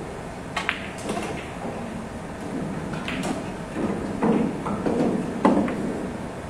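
Pool balls on a billiard table: a sharp cue strike and ball click about half a second in, then a few more clicks and knocks as the balls hit each other and the rails.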